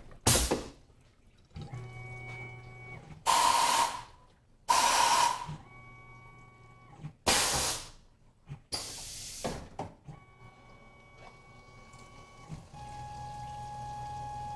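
A Tormach PCNC 1100 CNC mill changes tools. Five sharp bursts of air hiss come from the pneumatic power drawbar and tool blast, between faint whining tones as the axes and tool carousel move. About thirteen seconds in, the spindle starts and runs with a steady whine over the hiss of coolant.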